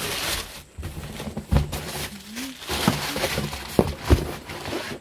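Honeycomb kraft-paper packing rustling and crinkling as it is pulled out of a cardboard box, with a few sharp knocks from the handling.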